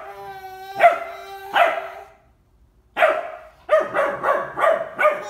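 Ten-week-old Bernese Mountain Dog puppy barking: two barks, a pause of about a second, then a quick run of about five more.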